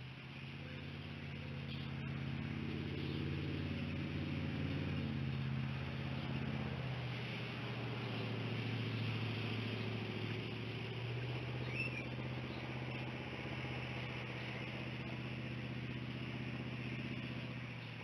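A low motor hum, swelling over the first few seconds and shifting pitch a little, over a steady hiss of insects, with one short high chirp past the middle.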